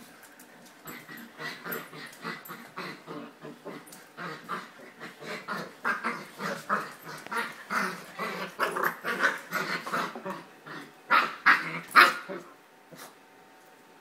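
Dogs play-growling in rough play, a rapid run of short growls several a second that grows louder and ends in a few sharp, loud cries before stopping.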